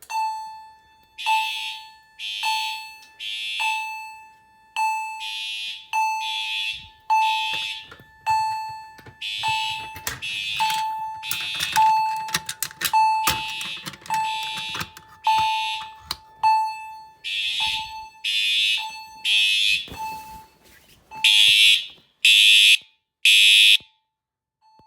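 A fire alarm system sounding after its manual pull station is pulled. A chime strikes about once a second, each stroke ringing down, over a pulsing buzzy horn. Near the end the horn sounds in louder, longer on-off blasts.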